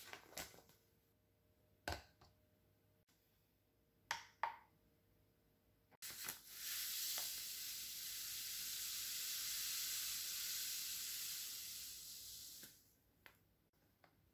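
Granulated sugar poured in a steady stream into a glass bowl, a continuous hiss lasting about six and a half seconds that starts near the middle and stops shortly before the end. Before it, a few short rustles and taps as the sugar bag is handled.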